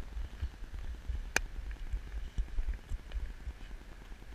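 Wind buffeting the microphone as a steady low rumble, with a single sharp click about a second and a half in.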